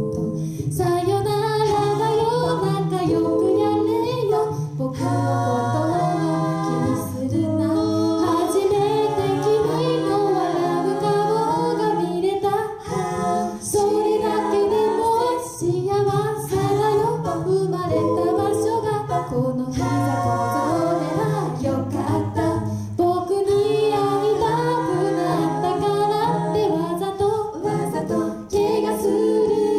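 Five-voice a cappella group singing a pop song in close harmony, with a low sung bass line held beneath the moving upper voices and the lead melody.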